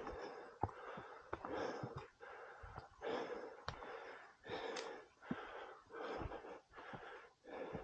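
A person breathing hard, quick in-and-out breaths at an even pace, about one every three-quarters of a second, from the effort of climbing steep rock steps, with a few light clicks between the breaths.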